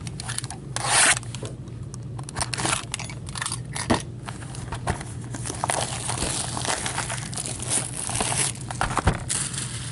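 Cellophane shrink-wrap being cut and pulled off a sealed box of hockey cards, crinkling and crackling, with a loud rustle about a second in. A couple of sharp knocks, around four seconds and near the end.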